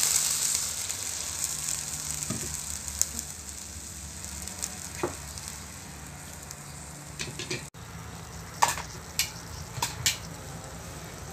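Hot aluminium pot of vegetables sizzling as water is poured in, the hiss loudest at first and dying down over the first few seconds. Then a metal spoon stirs the vegetables, clinking against the pot several times near the end.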